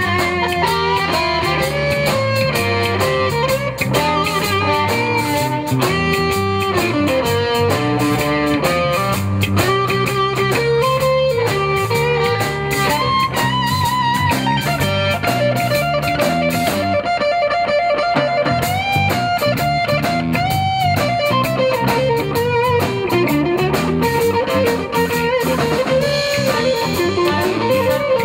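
Live blues band playing an instrumental passage: electric guitar lead with bends and held, wavering notes over bass and drums.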